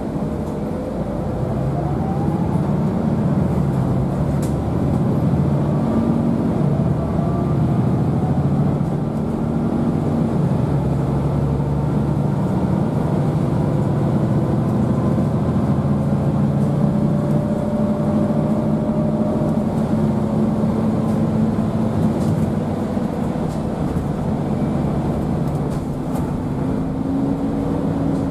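MAN D2066 inline-six diesel and ZF EcoLife six-speed automatic of a MAN A95 city bus, heard from inside the passenger cabin as the bus pulls along the road. The engine note rises in the first couple of seconds, then steps up and down as the gearbox changes gear.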